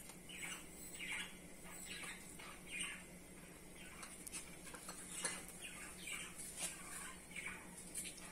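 A bird chirping again and again in short falling calls, about one every second, with a few faint sharp clicks in between.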